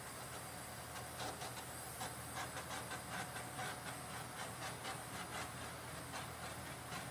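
Small hand-held butane torch hissing steadily as its flame is passed over wet acrylic paint. A quick run of light clicks and taps joins it from about a second in until past the middle.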